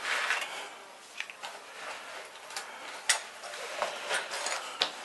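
Small hand tools working on electrical cable: a string of irregular sharp clicks and short scrapes as the insulation is cut and stripped, the loudest click about three seconds in.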